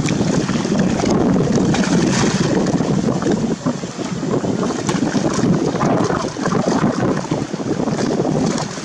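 Strong river wind buffeting the microphone: a loud rushing noise that rises and falls, over the wash of choppy river water.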